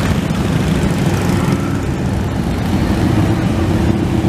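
Harley-Davidson motorcycles' V-twin engines running steadily as a procession of bikes rides slowly past. About halfway through, one engine's note stands out as a steady hum.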